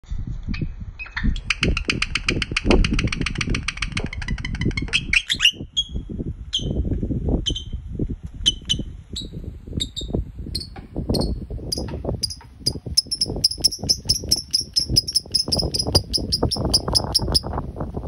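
Fischer's lovebird chattering: a rapid trill of high chirps for about four seconds, then single sharp chirps about half a second apart, then a fast run of chirps near the end. Wind rumbles on the microphone underneath.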